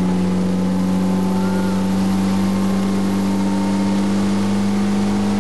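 Ski boat engine running steadily at speed while towing a rider on the rope: a loud, even drone that holds one pitch.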